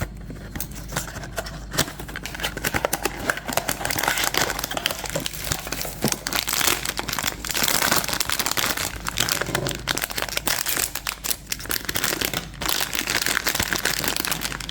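Crinkly plastic packaging being handled and torn open as a blind box is unpacked: a continuous run of crackling and rustling.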